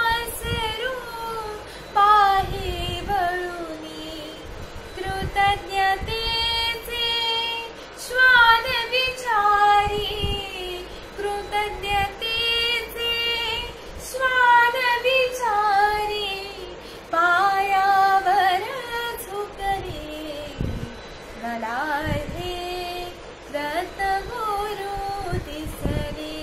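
A young woman singing a Marathi devotional song solo, in ornamented phrases whose pitch glides and bends.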